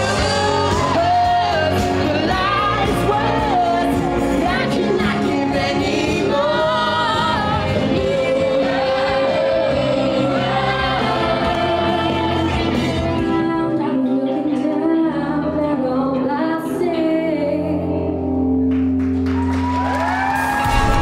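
Live pop vocal performance: a lead singer on a handheld microphone with a group of young singers and backing music, ending on long held notes.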